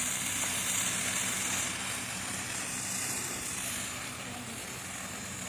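A Poopy Puppy snake firework fizzing as it burns and pushes out its ash snake: a steady hiss that fades after about two seconds, over a faint low hum.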